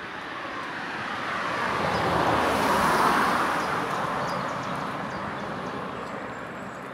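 A car passing on the road: tyre and road noise that swells to a peak about three seconds in and then fades as the car drives away.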